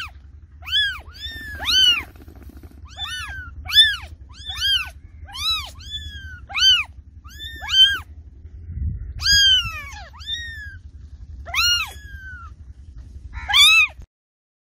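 A cat meowing over and over, about fourteen high-pitched calls that each rise and fall in pitch, coming roughly once a second, with a low rumble underneath.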